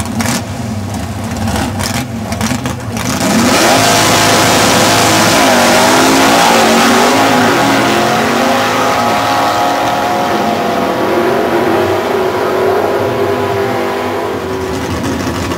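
AMC AMX drag car's V8 sitting at the line, then launching about three seconds in and accelerating hard. The engine note rises and drops through several manual gear shifts and slowly fades as the car runs away down the strip.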